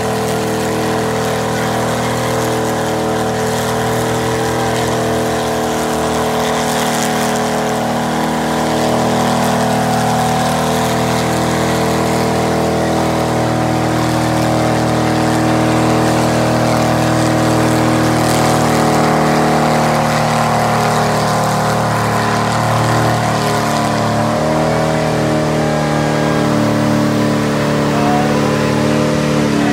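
Mud truck's engine running hard at a steady pitch as its big tires churn through a long water-filled mud pit, with the hiss and splash of thrown mud and water underneath. The pitch wavers a little near the end.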